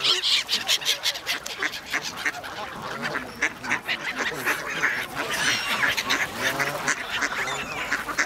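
A flock of Canada geese and mallards calling together: a busy, continuous mix of many short, overlapping goose honks and duck quacks.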